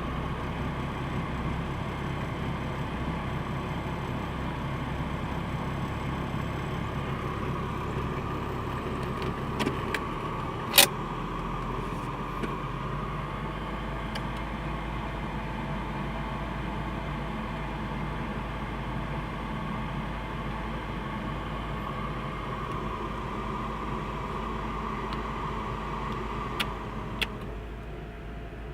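Mercedes G 300 engine idling steadily, an idle its owner calls rough. There is one sharp click about a third of the way through and two lighter clicks near the end, after which a steady higher-pitched tone in the sound stops and it gets a little quieter.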